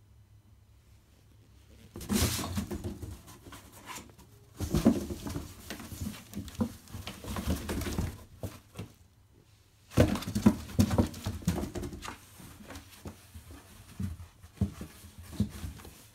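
Kittens scrabbling and batting at a cardboard box: bursts of scratching, scraping and knocking of paws and claws on the cardboard, starting about two seconds in, with lighter scattered taps near the end.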